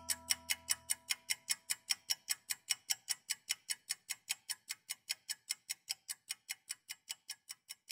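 Analog alarm clock ticking in a rapid, even rhythm, while background music fades out in the first second or so.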